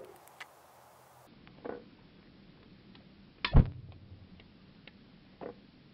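A few sharp knocks and clicks, the loudest a single thump about three and a half seconds in.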